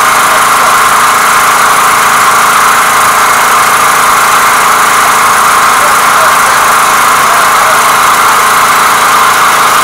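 Small petrol engine of a long-shaft water pump running steadily at a constant speed.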